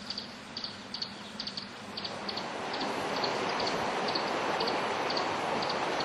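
Rushing water of a forest stream fading in from about two seconds in and then running steadily. Short high chirps repeat about twice a second over it.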